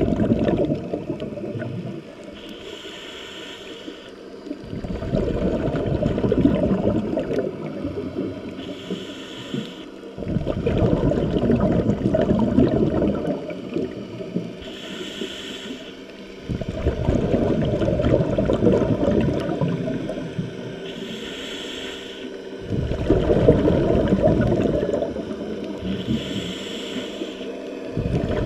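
Scuba diver breathing through a regulator underwater: five breaths about six seconds apart, each a short hissing inhale followed by a longer rumble of exhaled bubbles.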